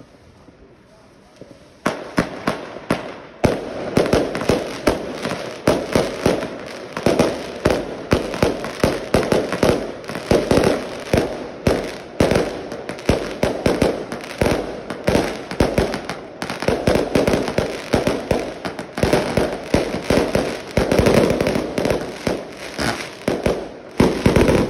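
Fireworks exploding in a dense, unbroken barrage: sharp bangs and crackling bursts, several a second, starting about two seconds in after a short lull.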